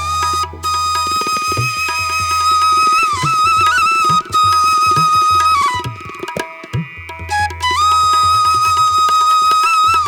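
Background music: a held, bending flute-like melody over a low drone and hand-drum strokes.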